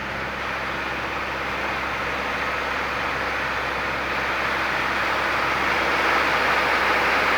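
Light single-engine propeller aircraft heard from inside the cabin: steady piston engine and propeller drone under rushing airflow noise that swells steadily louder.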